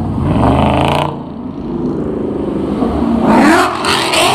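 Two cars accelerating hard past in turn, their engines rising in pitch as they rev up: the first in the opening second, the second, a Ford Mustang, louder, about three seconds in.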